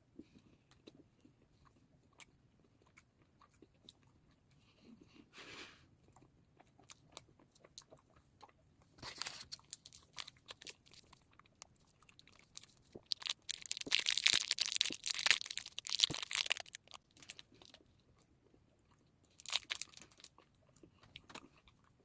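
Close-up mouth sounds of eating a Wispa aerated chocolate bar: bites and chewing, in short crisp bursts with a longer, louder stretch about two-thirds of the way through.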